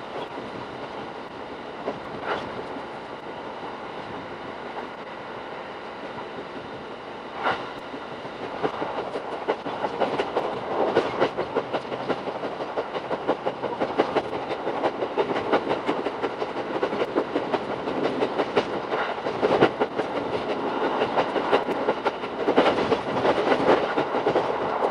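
Shinano Railway SR1 series train running, heard from inside the car: a steady rush of running noise with rapid rail clatter, growing louder from about eight seconds in.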